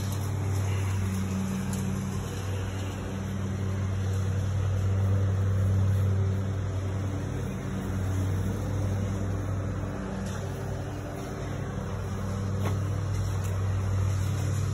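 Steady low hum of a running motor, swelling and easing slightly in loudness.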